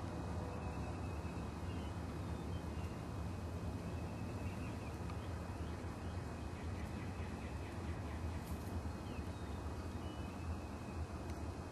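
Outdoor ambience: a steady low rumble with faint, scattered chirps of small birds.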